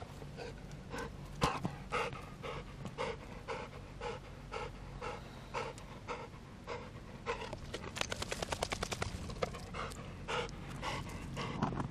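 Golden retriever panting hard, about two pants a second, quickening into a fast run of short pants a little past the middle. The dog is out of breath from running after the ball.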